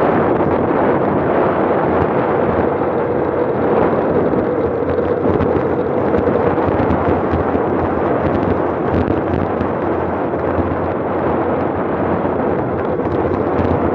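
Loud, steady wind buffeting on the microphone of a handlebar-mounted camera on a road bike descending at about 35 mph.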